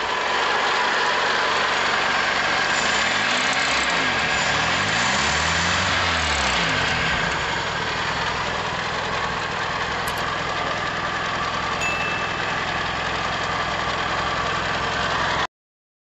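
Carbureted Nissan 12-valve four-cylinder engine running steadily at idle, its carburetor cleaned of the clog that had kept fuel from spraying and made it hard to start.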